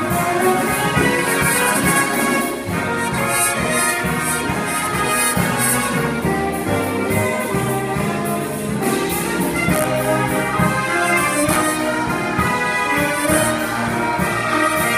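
Jazz big band playing live: saxophone, trumpet and trombone sections together over a rhythm section of piano, upright bass and guitar, with steady cymbal strokes keeping time.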